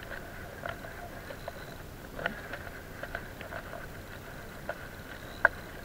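A spinning reel being cranked to bring in a hooked fish: a faint steady whir of the reel with many light, irregular clicks, and one sharper click near the end.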